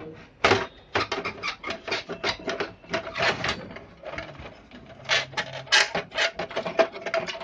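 Plastic side cover of an HP LaserJet 1020 being prised off the printer's body: a rapid, irregular run of plastic clicks, snaps and scrapes as the latches let go and the case is shifted about.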